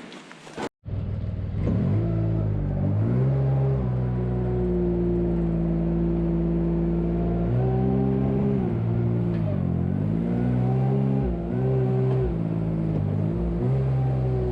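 Tractor engine running steadily, its speed dropping and picking up again several times as it works.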